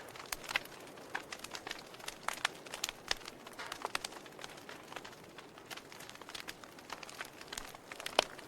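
Wood fire crackling in a fireplace, with irregular sharp pops and snaps over a soft steady hiss of burning.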